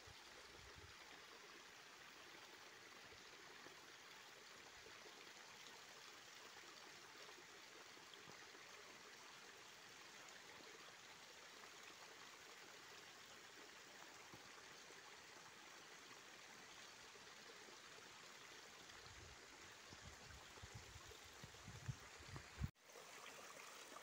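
Faint, steady rush of a small forest stream running into a pool, with a few low bumps about three-quarters of the way in.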